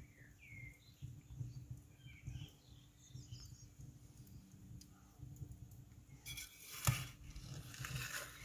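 A few faint small chirps, like birds, in the first half. Then a sharp knock about seven seconds in, followed by a rattling, scraping noise.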